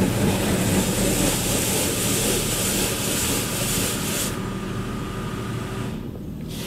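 Water Wizard automatic car wash running over the van, heard from inside the cabin: water spray hissing against the body over a steady low machine hum. The spray hiss thins about four seconds in and falls away further near the end.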